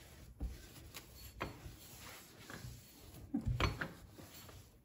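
Quiet rubbing of a microfibre cloth being wiped over a glass gas hob to polish it, with several light knocks as the hand and cloth bump the burner caps, the loudest about three and a half seconds in.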